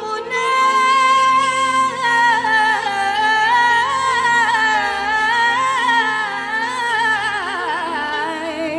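A woman singing one long, melismatic held note in an Arabic devotional song. The note is steady for about two seconds, then winds through quick ornamental turns and sinks lower near the end.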